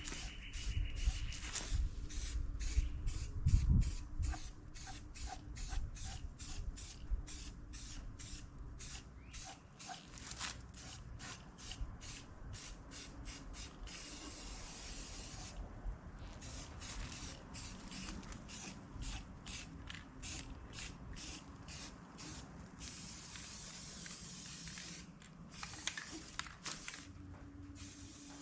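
Black enamel spray paint hissing out of the nozzle in many short bursts in quick succession, then in a few longer, steady sprays. Wind rumbles on the microphone in the first few seconds.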